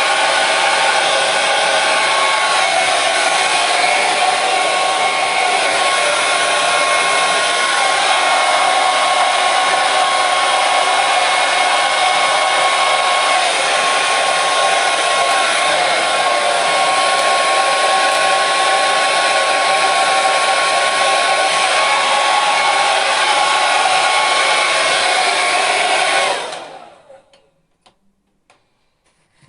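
Hair dryer running with a steady, loud blowing noise and a faint high whine. It cuts off about three seconds before the end, leaving near silence.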